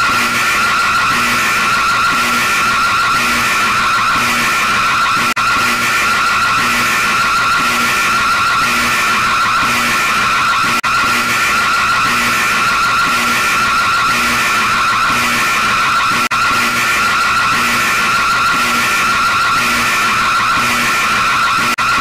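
Loud, harsh, screeching electronic alarm tone of an emergency alert (EAS-style) looping without pause. A faint low pulse repeats beneath it about every two-thirds of a second, and the sound drops out for an instant about every five and a half seconds, where the loop restarts.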